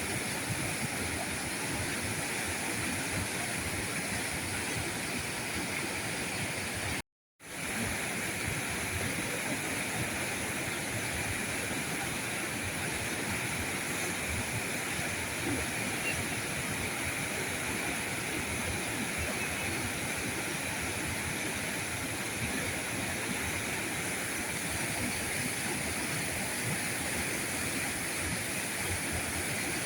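River current flowing steadily, with a brief drop to silence about seven seconds in before the water sound returns.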